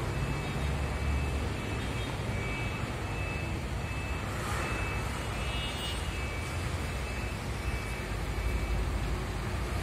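Steady low rumble of passing road traffic, with faint high tones coming and going.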